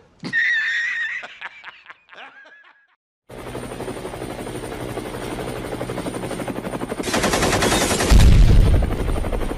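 Edited sound effects: after a brief high, wavering voice-like sound, an attack helicopter effect sets in as a fast, even, rapid-fire pulsing. A loud explosion with a deep boom follows about eight seconds in.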